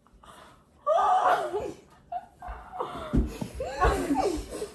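Several people laughing, starting about a second in, with a couple of dull bumps partway through.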